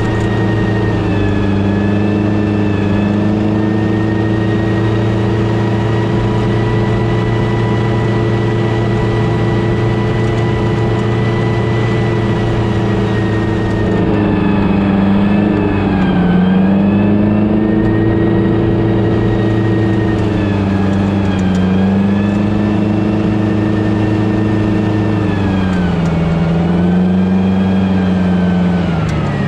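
Diesel engine of an M109 Paladin self-propelled howitzer running under way as the vehicle drives, with a steady drone and a high whine. From about halfway the engine note dips in pitch and climbs back again several times.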